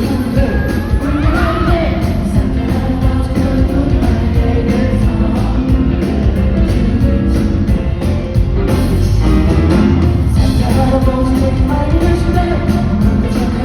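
Live pop band playing a Christmas song, with a male singer singing over it.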